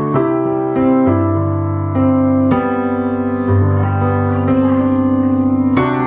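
Digital piano played in slow, sustained chords, a new chord struck every half second to a second or so with a low bass note under each.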